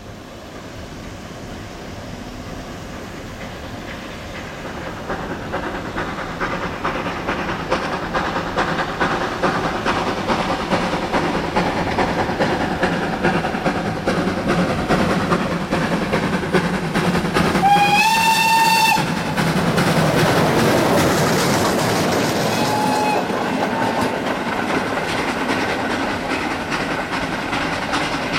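Steam-hauled train approaching, its running noise and wheel clatter growing steadily louder. About 18 seconds in, the locomotive's steam whistle sounds for about a second, and a short second toot follows about five seconds later.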